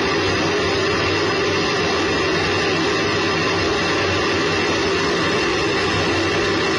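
Steady roar of a Space Shuttle solid rocket booster in powered ascent, heard through a camera mounted on the booster: the motor burning and the rush and rattle of flight, with a few steady tones running through the noise.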